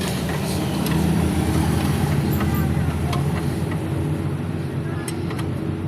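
A car engine running steadily at a low, even pitch, with a few faint clicks over it.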